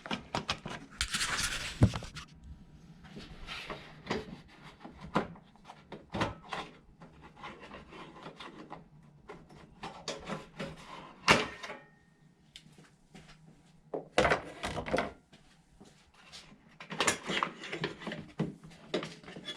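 Plastic headlight housing trim on a Mazda RX-7 being worked loose and pulled off by hand: scattered clicks and knocks with bursts of plastic rubbing and scraping.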